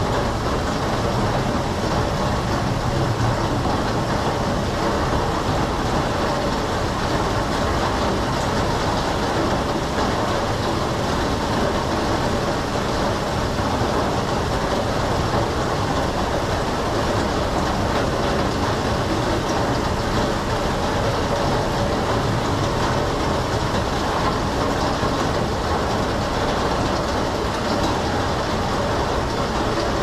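Heavy rain pouring down in a steady, even downpour.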